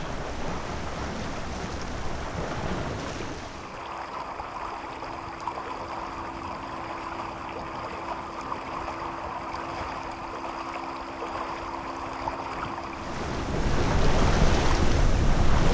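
Water rushing along the hull of a sailing yacht under way, with wind on the microphone. A faint steady hum runs through the middle, and the wind buffeting grows louder near the end.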